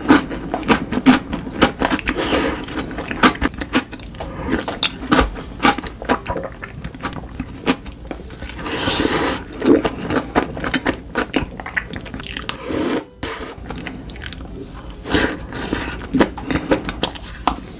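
Close-up chewing and biting of chocolate, with dense, irregular crunching clicks and wet mouth sounds, broken by a brief gap about thirteen seconds in.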